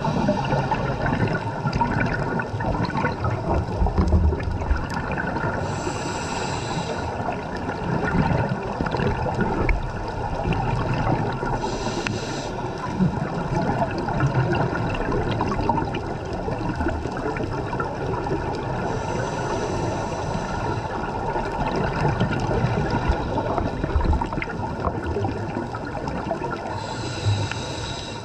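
Underwater scuba diving sound: a diver breathing through a regulator, with exhaled bubbles gurgling over a steady rush of water and a short hiss of breath about every seven seconds.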